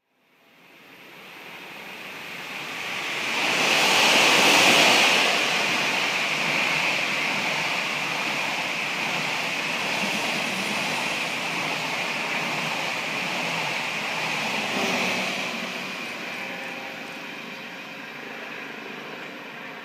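Hokutosei sleeper express, a locomotive-hauled blue train, passing close beneath: a loud rushing rumble of wheels on rail that fades in, is loudest about four to five seconds in, and carries on steadily as the coaches run by. It swells briefly once more and then slowly falls away as the rear car draws off into the distance.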